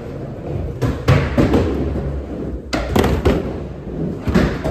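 Skateboards knocking and slapping on the ground and ramps, seven or so sharp thuds and clacks in quick groups over a low rolling rumble.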